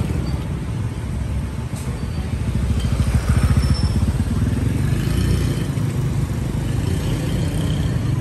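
Motorbike engines and street traffic: a low, steady engine hum close by that grows louder about three seconds in, with scooters passing on a busy street.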